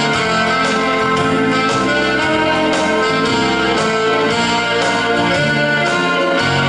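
Instrumental break of a slow Swedish ballad: keyboard chords with a steady bass line, no singing.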